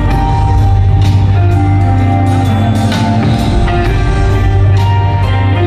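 Live band music through a stadium sound system: held keyboard notes over a heavy bass line, with drum hits every second or so.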